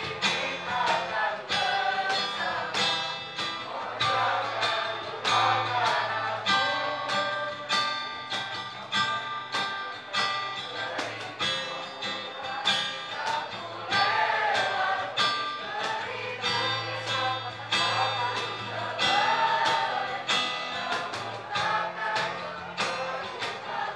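A school choir singing in unison, accompanied by a guitar strummed in a steady rhythm.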